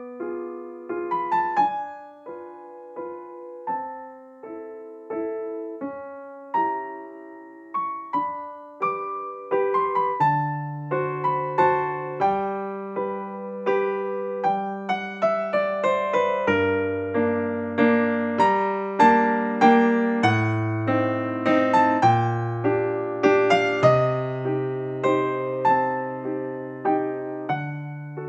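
Background keyboard music: a melody of struck notes that each die away, with a lower bass line joining about ten seconds in.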